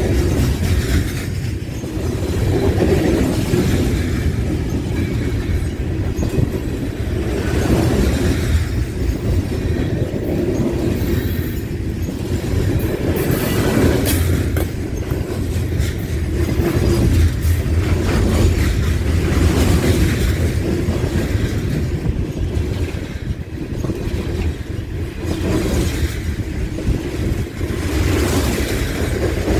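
Loaded-style coal gondola cars of a freight train rolling past close by: steel wheels running on the rails with a steady, deep rumble and occasional clacks.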